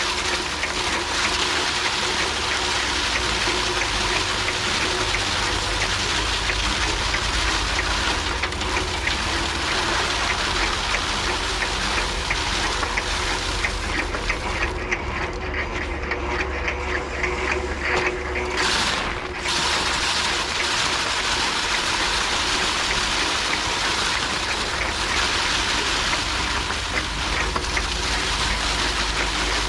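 Foot-pedal paddy thresher with its wire-toothed drum spinning as rice stalks are held against it: a steady rushing whir with a low rumble. About halfway through, the hiss thins for a few seconds, then comes back.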